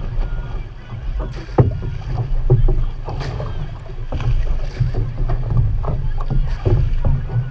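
Outrigger canoe under way: water rushing and slapping along the hull and paddles splashing in at irregular strokes, over a steady low rumble of water and wind on the microphone.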